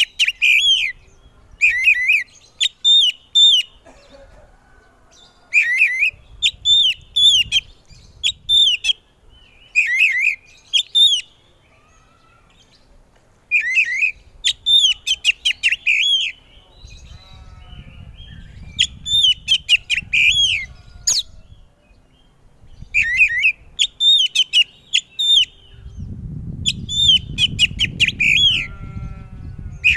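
Oriental magpie-robin (white-bellied kacer) singing: short phrases of loud, clear whistled notes repeated every couple of seconds, with brief pauses between them and now and then a harsh, rasping note. A low background rumble rises in the last few seconds.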